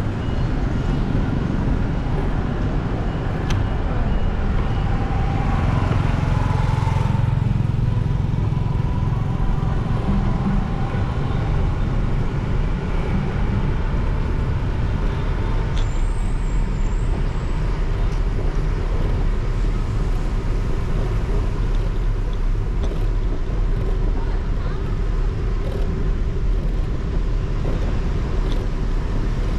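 Riding a motorcycle in city traffic: a steady low rumble of wind on the microphone, engine and road noise, with the surrounding traffic passing.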